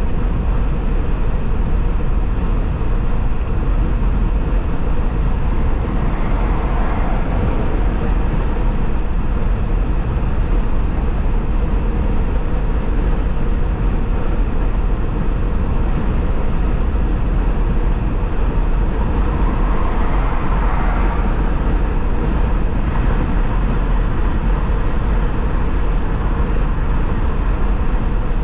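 Steady road noise of a vehicle driving at highway speed: tyre hiss on the pavement over a deep, constant rumble. The hiss swells briefly twice, about a quarter and about three quarters of the way through.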